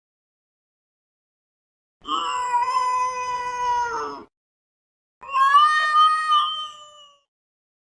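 A cat giving two long, drawn-out meows, each about two seconds, a short pause apart. The second one wavers in pitch.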